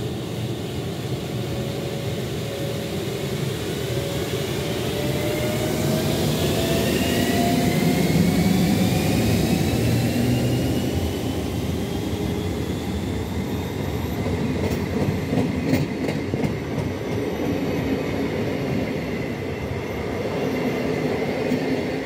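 ÖBB class 1144 electric locomotive accelerating away with its train: the loud run of its cooling blowers, the source of its "Alpine vacuum cleaner" nickname, under a whine that rises in pitch as it gathers speed. The coaches follow rolling past, with a few clicks of wheels over rail joints about fifteen seconds in.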